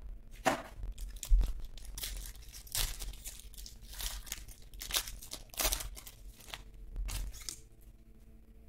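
Foil wrapper of a 2021 Topps Inception baseball card pack being torn open by hand, a series of short rips and crinkles, with a low thump about a second and a half in.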